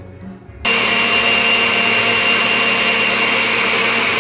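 Countertop blender switched on about half a second in and then running steadily with a whining motor, beating raw eggs.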